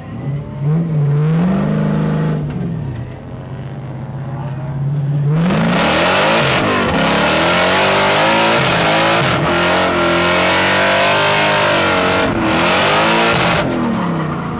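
Supercharged Toyota 1UZ V8 drift truck engine revving up and down, then holding steady. About five seconds in, a loud rushing hiss joins it while the revs keep rising and falling.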